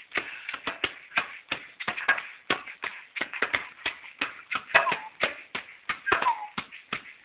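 Small djembe slapped with bare hands in a quick, uneven run of strokes, about four a second.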